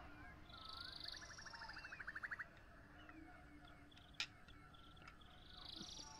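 Faint birdsong from more than one bird: short whistled phrases and chirps, with a fast rattling trill about two seconds in. A single sharp click about four seconds in.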